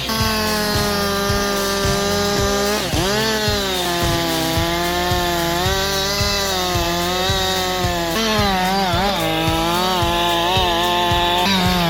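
Chainsaw running at high revs, its pitch sagging and wobbling each time the chain bites into wood, a few seconds in and again several times later on.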